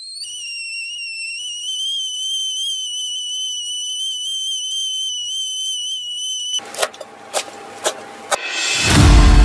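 Whistling kettle at the boil: a steady high whistle that wavers a little as it settles, then cuts off abruptly. It is followed by four sharp knife chops on a cutting board, about half a second apart.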